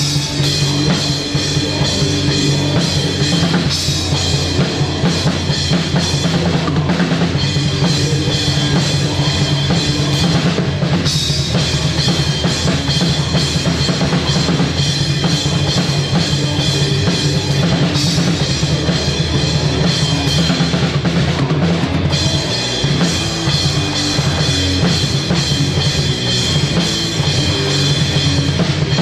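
Live rock band playing loud, with the drum kit close and prominent: bass drum, snare and cymbals over electric guitar and bass guitar.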